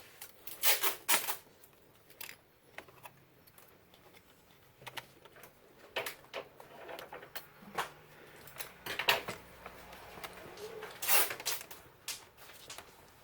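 Scattered clicks and knocks of hands working on a laptop's RAM: a memory module being handled and fitted into its slot, with a pair of sharp clicks about a second in and more near the end.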